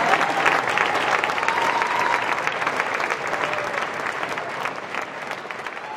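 Audience applauding after an opera duet, a dense patter of many hands clapping that slowly dies down.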